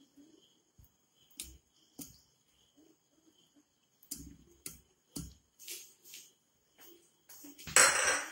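Scattered light clicks and knocks of a hand working cooked sardines and tapioca against the sides of an aluminium pressure cooker. Near the end comes one short, louder scrape as the cooker is shifted on the stovetop.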